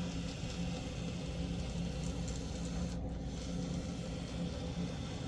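N scale Atlas/Kato RS3 locomotive model running on the track, its small electric motor and gears giving a steady whir.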